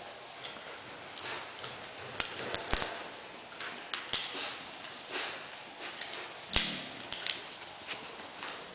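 Czechoslovakian wolfdog puppies' claws clicking on a tiled floor as they play. The taps come irregularly, and the loudest falls about two-thirds of the way through.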